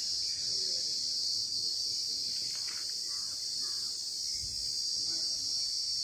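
Steady, high-pitched chorus of insects shrilling in the surrounding trees, with a brief low rumble a little after four seconds.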